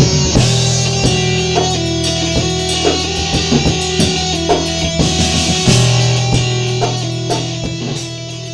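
Rock song with distorted electric guitars, bass and drum kit, slowly fading out over the last few seconds.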